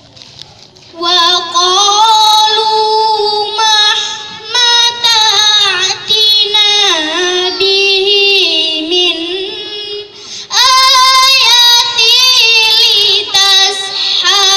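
A girl reciting the Quran in melodic tilawah style into a microphone: long, ornamented held notes that waver up and down in pitch. She begins about a second in and stops briefly for breath near the ten-second mark before starting the next phrase.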